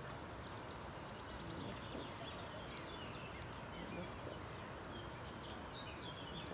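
Scattered short, high bird chirps over a steady outdoor background hiss.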